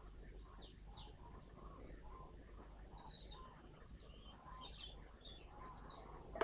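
Small songbirds giving many short, faint chirps and calls, over a low steady hum.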